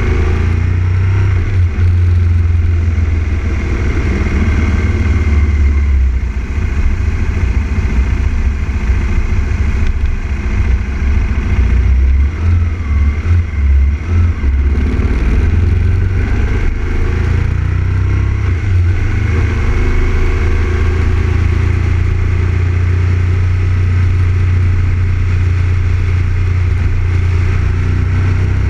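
2000 Aprilia RSV Mille R's 998 cc V-twin engine running as the bike rides along, its pitch rising and falling gently, under a heavy, fluttering rumble of wind on the fairing-mounted camera's microphone.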